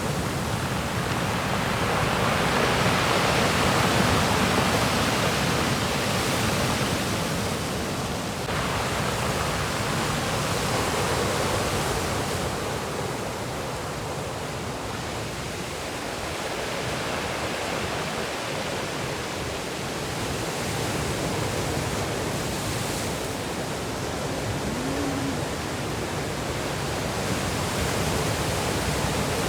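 Rough sea surf crashing and washing without a break, swelling and easing over several seconds.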